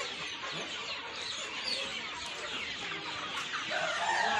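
A flock of young village chickens clucking and cheeping together in a dense, continuous chatter of many short calls. A louder, longer call comes in near the end.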